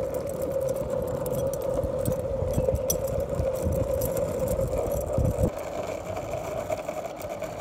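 Longboard wheels rolling over asphalt: a steady rumble with a hum running through it. The rumble drops away about five and a half seconds in.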